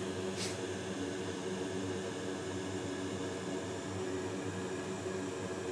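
Steady fan-like whir and hiss from workbench equipment, with an even electrical hum under it. A brief high hiss comes about half a second in.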